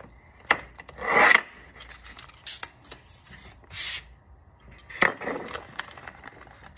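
Handling noises at a workbench: plastic parts bags rustling and crinkling, with parts rubbing and scraping on the bench. There is a louder rub about a second in and another at about five seconds, with scattered small clicks between.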